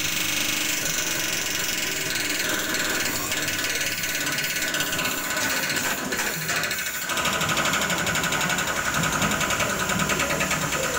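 Forage chopper running with green fodder fed into its hopper, its blades cutting the stalks: a steady mechanical chopping noise. About seven seconds in, the sound changes to a finer, rapid rattle.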